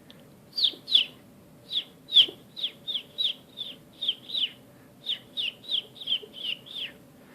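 A man's mouth imitation of baby bird chicks peeping: about sixteen short, high, slightly falling peeps in three quick runs.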